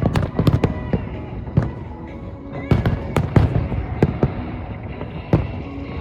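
Fireworks shells bursting in quick succession, a dozen or so sharp bangs with booming tails, the densest clusters near the start and about three seconds in. Music plays under the bursts.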